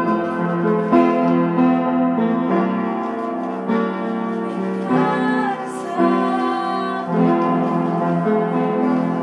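Music on a keyboard instrument, sustained chords with a new chord struck about every second.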